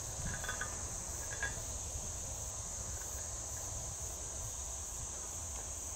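Steady high drone of insects over a low wind rumble, with a few faint small scrapes about half a second and a second and a half in as a bullet fragment is nudged on a concrete cinder block.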